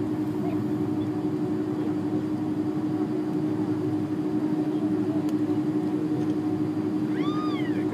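Airliner cabin noise during taxi: the engines hold a steady hum with a constant droning tone, heard from inside the cabin by the wing. A short squeak rises then falls in pitch near the end.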